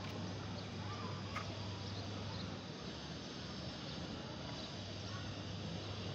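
Steady outdoor background noise with a low hum that drops out about three seconds in and comes back near the end, and a few faint clicks.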